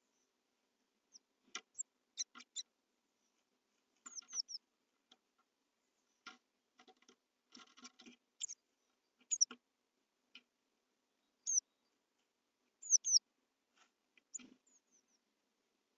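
Blue tit inside a nest box giving short, high, falling call notes again and again, mixed with scratching and tapping from its feet and beak on the moss nest and the wooden box.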